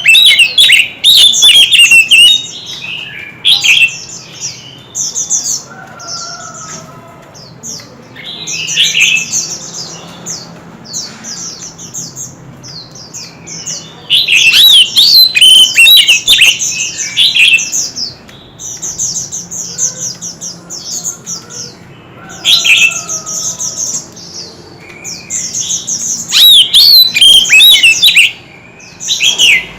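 White-rumped shama singing: loud, varied whistled phrases with quick rising and falling notes, in bursts of a second or a few seconds separated by short pauses.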